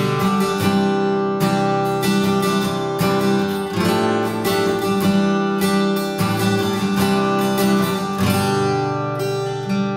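Art & Lutherie Cedar Antique Burst acoustic guitar (solid cedar top, wild cherry back and sides) being played: a riff of strummed and picked chords with a fresh attack every half second or so and the notes ringing on between them.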